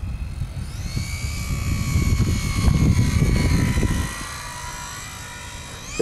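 HobbyZone Super Cub RC plane's small electric motor and propeller whining as it makes a slow, low flyby, the pitch rising and then slowly falling as it passes. Wind buffets the microphone with a low rumble until about four seconds in.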